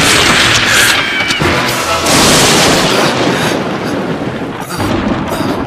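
Thunder: a loud crash at the start and another about two seconds in, each rumbling away, with music underneath.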